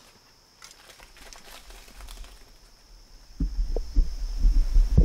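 A deer's hooves pattering faintly through dry leaves and cornstalks as it bolts away after a bow shot. From about three and a half seconds in, the camera is handled, with louder deep thumps and rumbling.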